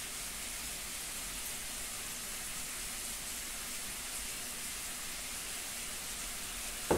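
Ground beef frying in a pot on the stovetop, a steady sizzling hiss. A single knock near the end.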